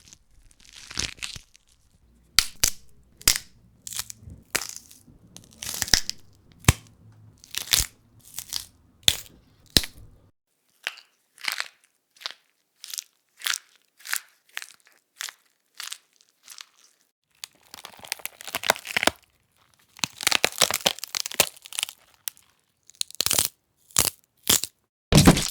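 A series of bone-breaking sound effects: sharp cracks and snaps, several in quick succession, then sparser single cracks, then longer bursts of dense crunching and crackling near the end.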